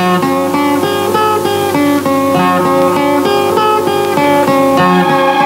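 Instrumental music on a plucked string instrument: a quick, even run of picked notes, about four or five a second, starting abruptly.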